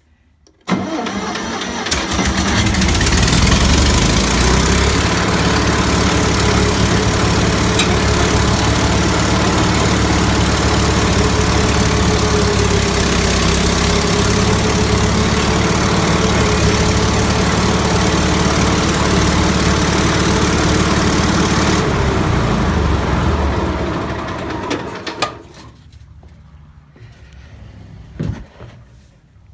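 Kohler two-cylinder air-cooled engine of an older Bobcat skid steer loader cranked and catching within the first two seconds. It then runs steadily, fed by a vacuum-operated fuel pump, and shuts down a few seconds before the end.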